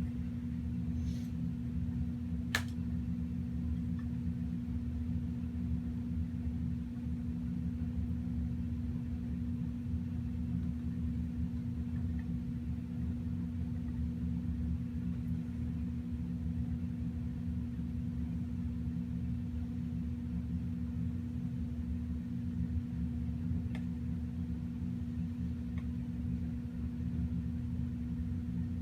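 Steady low mechanical hum with one clear tone, holding at an even level, with a sharp click about two and a half seconds in and a couple of faint ticks near the end.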